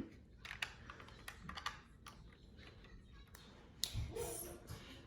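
Irregular small plastic clicks and taps of LEGO pieces being handled and pressed together.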